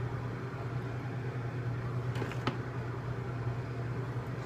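Steady low hum of a running kitchen appliance or fan, with a couple of faint clicks a little over two seconds in.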